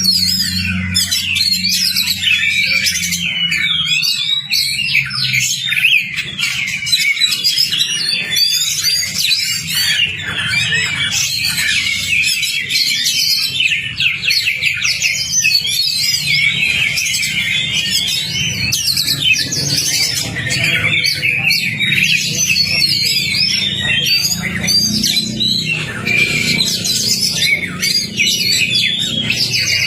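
Oriental magpie-robin (kacer) singing without a break: a fast, dense run of varied whistles, chirps and trills. Underneath is a steady low hum.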